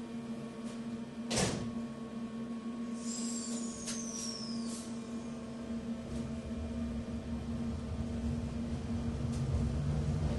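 Inside a Docklands Light Railway car: a steady electrical hum, with the sliding doors thudding shut about a second and a half in. A high whine falls in pitch for a couple of seconds after that, with a few light clicks. Near the end a low rumble builds as the train begins to move off.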